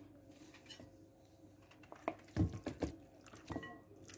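Raw, wet chicken wings dropped into a bowl of seasoned cornflour: several soft, wet thuds one after another, starting about halfway through.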